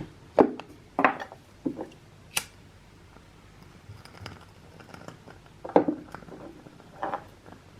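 A handful of short, light knocks and clicks from small household objects being handled, spaced irregularly, with a quiet stretch in the middle.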